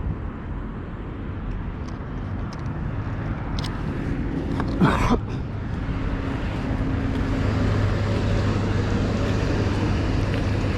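Low steady rumble of a vehicle engine and road traffic, with a low hum that grows louder from about seven seconds in. A short, sharp noise sounds about five seconds in.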